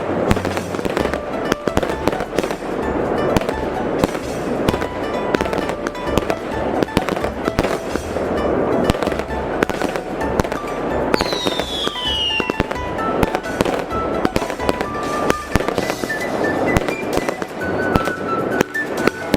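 Dense, continuous crackle of firecrackers and fireworks bangs over music with a steady, repeating bass line. A high whistle falls in pitch a little after halfway through.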